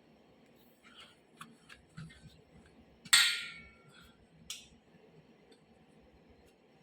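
A few light metallic clicks and taps, then about three seconds in one loud ringing metal clang that dies away over about half a second, followed by another sharp tap: metal tools and motor parts knocking together during hands-on motor bearing work.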